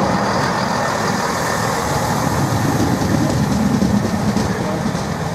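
Class 165 Turbo diesel multiple unit pulling out past the platform: a steady run of underfloor diesel engines and wheel noise, easing off a little near the end.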